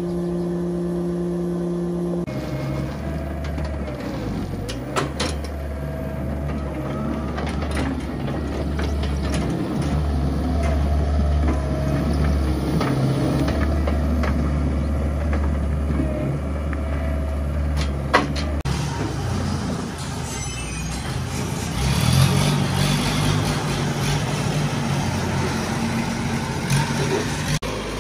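Diesel engine of a John Deere compact track loader running steadily as it lifts large square hay bales onto a stack, with a couple of sharp clanks. About two-thirds of the way in it gives way to the engine of a rough-terrain forklift driving.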